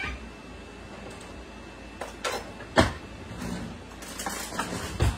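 A handful of sharp knocks and clatters, the loudest nearly three seconds in, over a steady hiss.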